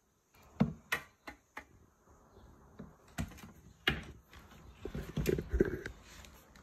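Irregular clicks and knocks of roof luggage basket frame bars being handled and pushed into their plastic joints, with a quicker cluster of louder knocks about five seconds in.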